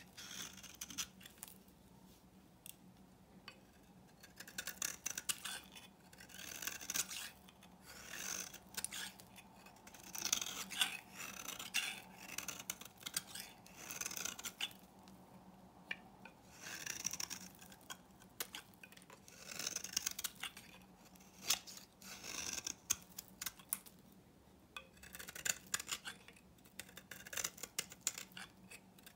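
Snap-off utility knife blade shaving thin curls off an old bar of soap: crisp, fine scraping strokes in runs of a second or two, with short pauses between.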